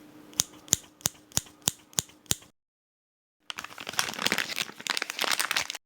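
Two short sound-effect clips. The first is seven sharp, evenly spaced mechanical clicks, about three a second. After a second of silence comes a dense run of rapid crackling and rattling.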